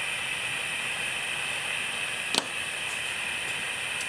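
Steady background hiss, with one sharp light click about two and a half seconds in as a small brass bracket is set down on a wooden work board.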